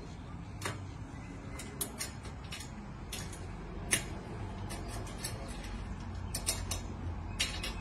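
Spanner working a nut or bolt on the steel base of a band saw blade sharpener: scattered light metallic clicks and taps, the loudest about four seconds in, over a low steady background hum.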